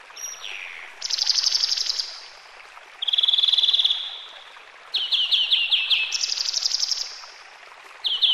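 A songbird singing phrases about a second long with short pauses between them: quick falling whistled notes, fast high trills and a buzzy trill.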